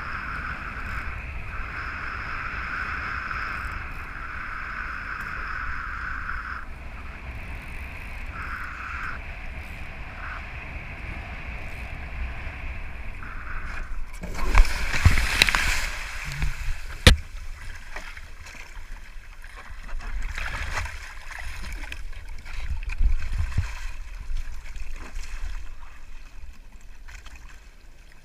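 Foiling Moth sailing dinghy underway: water rushing and sloshing past the boat, with wind buffeting the microphone. A high, steady whistle comes and goes over the first few seconds. About halfway there is a loud splashing surge followed by a sharp crack.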